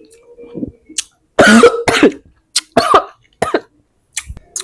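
A person coughing in a fit: a run of separate harsh coughs starting about a second in, the loudest near the middle. The coughing is brought on by eating spicy, sour kedondong rujak.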